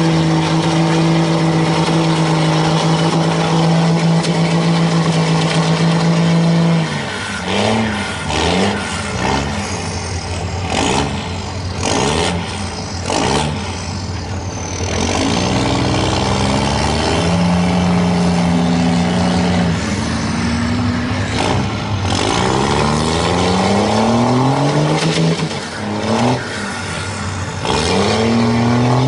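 Diesel engine of a Dodge mega mud truck held at steady high revs for several seconds, then revved up and down over and over, ending held high again, as the truck sits stuck in deep, sticky mud.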